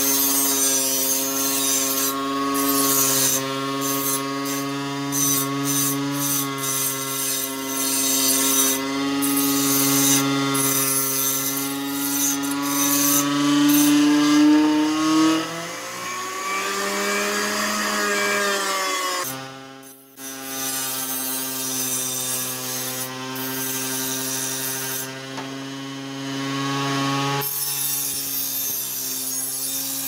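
Blender motor spinning an abrasive grinding disc as a homemade knife sharpener, running with a steady whine while a knife blade is held against the disc, giving a gritty grinding hiss that comes and goes. Around the middle the motor's pitch wavers and sags for a few seconds, cuts out briefly, then the motor runs steadily again.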